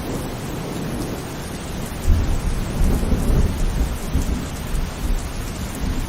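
Heavy rain falling steadily at night. About two seconds in, a low rumble of thunder sets in and becomes the loudest sound, swelling and fading under the rain.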